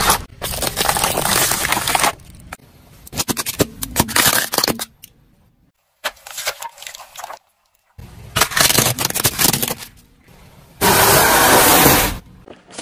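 A car tyre rolling over and crushing things one after another, in several separate stretches of crackling, crunching and snapping with short silent breaks between them. Among the things crushed are a Pringles can, a cardboard tube with crisps inside, and, near the end, a pile of small dry crackers.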